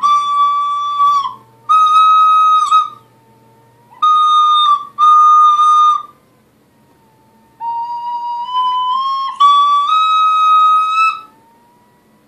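White plastic recorder played in short phrases of held high notes, each about a second long, with pauses between them; near the end the notes climb step by step in pitch.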